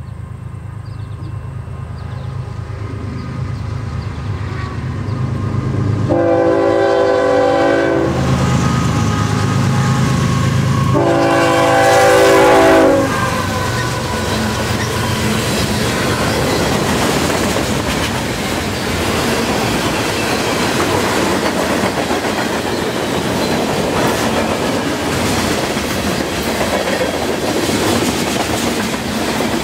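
CN freight train approaching, its diesel locomotive rumbling louder, with the horn sounding twice, about 2 seconds each, about 6 and 11 seconds in. Then the freight cars roll past with a steady clatter of wheels on the rails.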